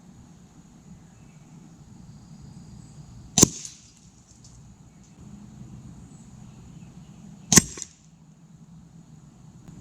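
Air rifle fired twice, about four seconds apart. Each shot is a sharp crack with a brief tail after it.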